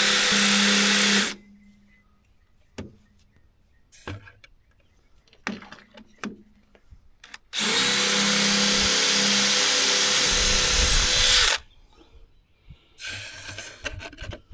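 Electric drill running at a steady full speed as it bores into cement block, stopping about a second in, then a second run of about four seconds starting near eight seconds in. A few light knocks and taps fall between the two runs.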